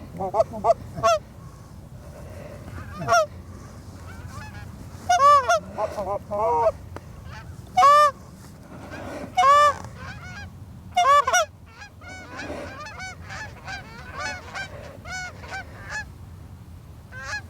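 A flock of Canada geese honking, many calls overlapping. A few loud close honks come in the first two thirds, with a denser chorus of fainter honks towards the end.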